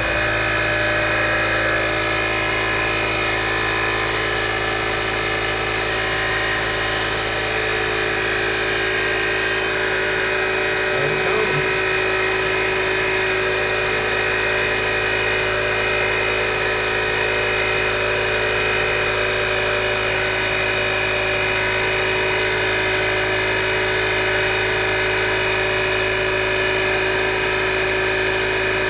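Campbell Hausfeld electric air compressor running steadily, its motor and pump giving an even hum at a constant pitch.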